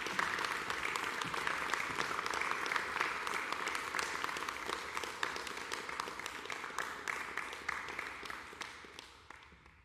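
Audience applauding, many hands clapping, then dying away over the last second or two.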